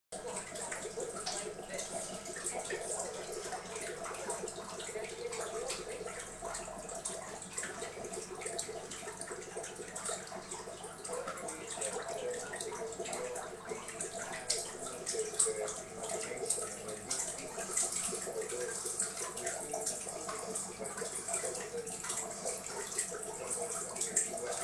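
Aquarium water splashing and bubbling steadily, with many small crackling drips and pops.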